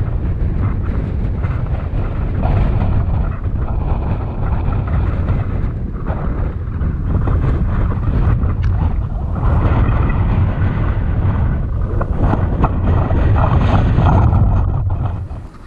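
Strong wind buffeting the microphone in deep, rumbling gusts. It blows harder from about ten seconds in and eases off just before the end.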